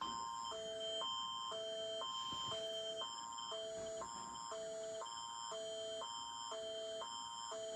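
Canadian Alert Ready attention signal, synthesized: a two-note chord alternating between a higher and a lower pitch every half second, over a steady high tone.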